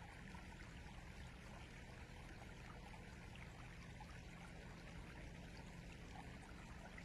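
River water flowing steadily: a faint, even rush with small splashes and trickles.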